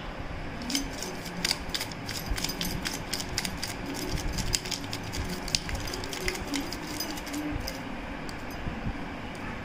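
Plastic spice shaker shaken over a plate of jhal muri, giving a run of quick, irregular clicks and rattles that die away about seven seconds in.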